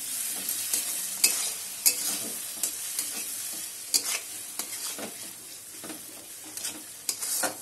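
A metal spatula stirring yogurt into frying onion-spice masala in a metal kadai: irregular sharp scrapes and knocks of the spatula against the pan over a steady sizzle.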